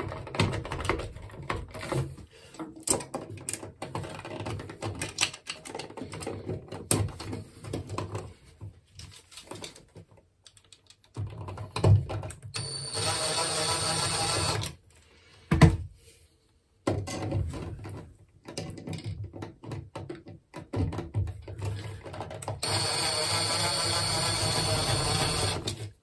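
Cordless drill/driver running steadily in two spells of two to three seconds each, driving the mounting screws of a wall outlet into its electrical box. Handling clicks and rattles come between the spells, with a single sharp knock just after the first one.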